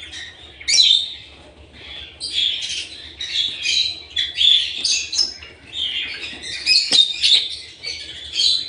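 Lovebirds chattering in rapid, high-pitched chirps and squeaks with short pauses, and a single sharp click about seven seconds in.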